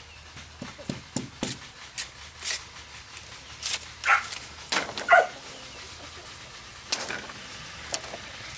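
Bamboo being chopped and split with a large knife: a string of sharp, irregular knocks. A dog barks briefly twice, about four and five seconds in, the second bark the loudest sound.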